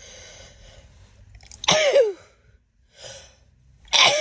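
A woman sneezing twice during a sneezing fit, each sneeze a sudden loud burst with a falling voiced tail, coming after a breathy inhale. The first comes a little under two seconds in, the second near the end.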